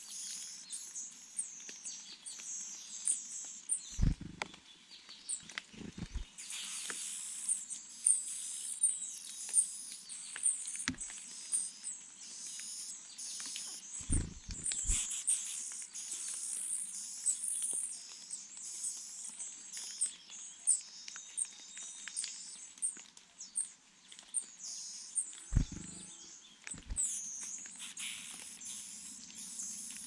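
Niltava nestlings begging with many thin, very high chirps in quick succession. A few dull low thumps come in between.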